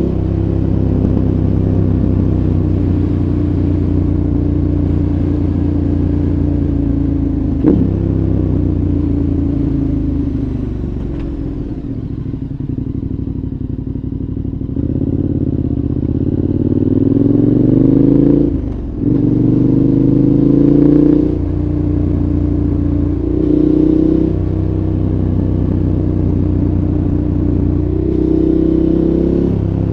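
2014 KTM 1190 Adventure's V-twin engine through a Giannelli exhaust with dB killer, heard onboard: it runs steadily, eases off and goes quieter about ten seconds in, then the revs rise in two pulls with a brief break between them past the middle, with two shorter rises later. A single sharp click about eight seconds in.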